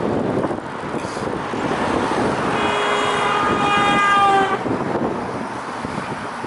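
Road traffic and wind noise, with a vehicle horn sounding once for about two seconds from about two and a half seconds in, its pitch dipping slightly at the end.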